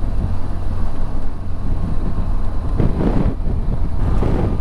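Motorcycle on the move, a steady low rumble of engine and wind on the microphone, with two short louder swells of noise about three seconds in and near the end.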